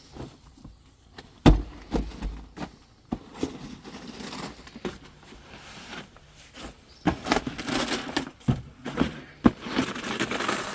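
A tarp being handled and spread out: sharp knocks and a heavy thump about a second and a half in, then rustling of the sheet in the second half.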